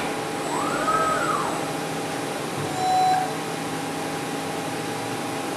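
Breton MAXIMA vertical machining centre running with a steady machine hum. About a second in, a tone rises and falls in pitch, and a short louder tone sounds around three seconds in.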